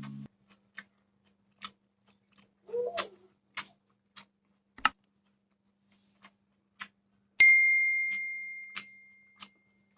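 Regular clock-like ticking, about one tick every 0.6 seconds, with a single bright ding a little past seven seconds in that rings on one tone and fades away.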